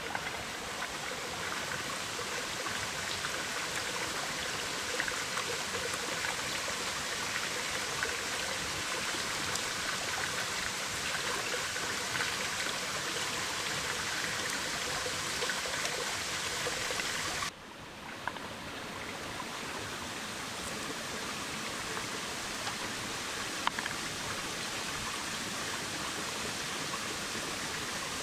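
Forest stream running steadily over rocks, with a few light clicks of peeled shallots dropped into a metal frying pan.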